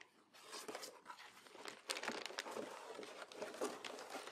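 Cardboard box flaps being pulled open and an LTO9 tape drive in a crinkly anti-static plastic bag lifted out: rustling of cardboard and plastic with scattered clicks and taps, starting about half a second in.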